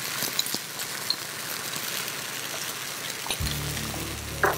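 Diced vegetables simmering in water in a wok: a steady bubbling hiss with small scattered pops. About three seconds in, a low steady hum joins it, and near the end there is a light knock.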